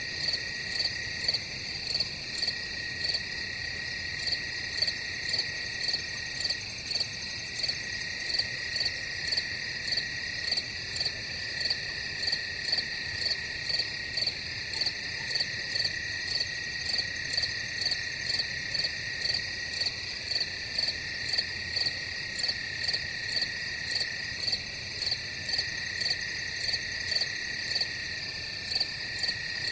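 Crickets chirping in a steady chorus: a continuous high trill under a louder, higher chirp that pulses about one and a half times a second.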